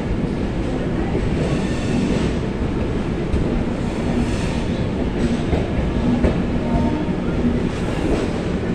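Passenger express train running along a station platform, heard from on board: a steady rumble of wheels on the rails.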